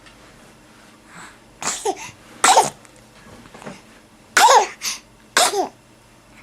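A run of short, sharp sneezes, several in about four seconds, starting about a second and a half in; the loudest come about two and a half, four and a half and five and a half seconds in.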